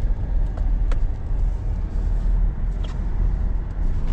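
Pickup truck cabin noise while driving: a steady low rumble of engine and road, with a few faint clicks.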